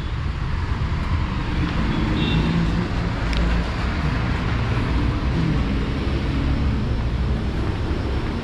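A vehicle engine running steadily, a low continuous rumble under a broad hiss.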